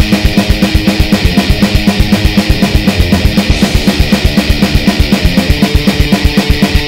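Background rock music driven by a fast, steady drum beat.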